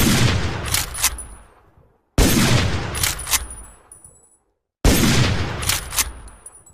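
Winchester Model 1895 lever-action rifle firing three shots about two and a half seconds apart, each followed by a long echoing tail. About a second after each shot come two quick clicks: the lever being worked to chamber the next round.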